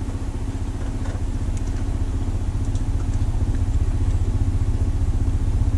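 A small engine running steadily with a fast, even low throb, slowly growing louder.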